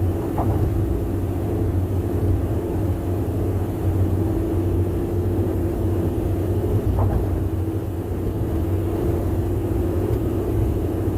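Car tyres running on the road at speed: a steady low drone of loud tyre noise with a constant hum, and two faint clicks, about half a second in and about seven seconds in.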